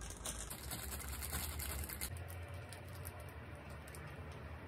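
Block of mozzarella cheese being rubbed up and down a metal box grater: a quick run of light, repeated scraping strokes.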